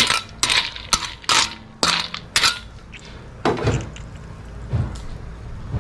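Metal spatula clinking against the wok and the siput sedut snail shells as a pan of snails in coconut gravy is stirred, about two sharp clinks a second, then a few duller knocks after about three seconds.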